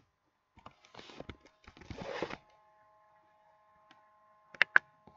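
Computer keyboard keys clicking as code is edited: scattered light taps and two short rustles early on, then two sharp, loud key presses near the end. A faint steady hum sets in about halfway.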